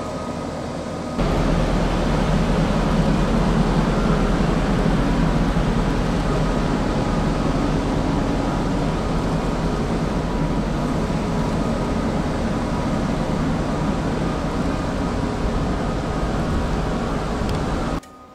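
Liebherr LR11000 crawler crane's engine and hydraulic drive running, a steady mechanical drone with a low rumble and faint high whining tones, heard close to the machine. It jumps louder about a second in and cuts off abruptly near the end.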